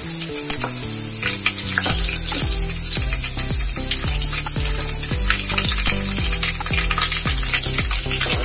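Mustard seeds and dried red chillies sizzling and crackling in hot oil in a steel pot, a tadka (tempering) for chutney, with a steel ladle stirring it near the end. Background music plays along.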